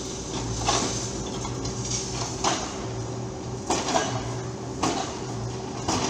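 Excavators working broken concrete: five sharp metallic clanks about every one to one and a half seconds, over a low engine hum that comes and goes.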